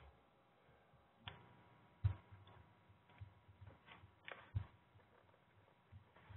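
Faint, irregular clicks and light taps from a computer mouse and keyboard being worked at a desk, over quiet room tone; the sharpest clicks come about two seconds and four and a half seconds in.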